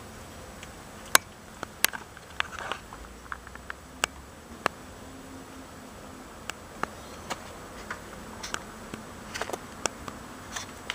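A kitten chewing and crunching catfish: irregular sharp clicks and crunches, a dozen or so, with a few short wet smacking sounds between them.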